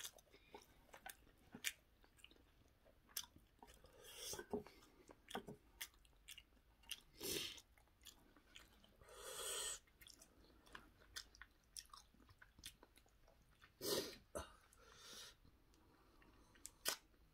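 Quiet eating of spicy instant ramyeon noodles and kimchi: soft chewing and noodle slurps, one longer slurp about nine seconds in, with scattered light clicks of wooden chopsticks against the bowls.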